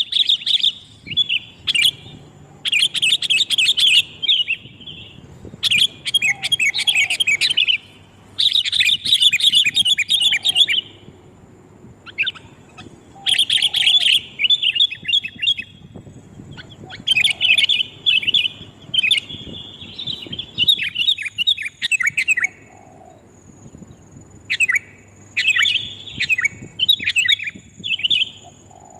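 Sooty-headed bulbul (kutilang) lure call: loud bursts of rapid chattering notes, each lasting about two seconds, repeated with short pauses. Near the end the phrases become shorter and more broken up.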